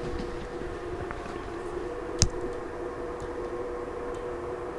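Steady electrical hum of the laser bench equipment, holding two steady tones. A single sharp click comes a little over two seconds in as the hand-held laser power meter is handled.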